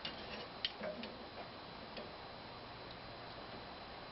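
A few light clicks and taps of a rule and pencil being handled against a pine workpiece while marking a measurement, the sharpest about two-thirds of a second in, over a faint steady hum.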